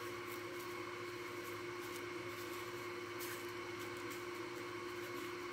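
A steady machine hum holds at one pitch throughout, with faint soft rustles and taps as a hand presses dry breading onto raw chicken tenders on a foam plate.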